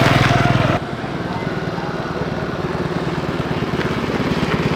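A small engine running steadily with a fast even beat, dropping in level suddenly under a second in.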